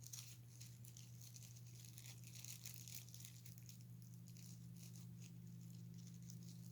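Faint clicks and rustles of small plastic parts being handled, a small gear being fitted onto a toy's head motor, thickest in the first three and a half seconds. A steady low hum runs underneath.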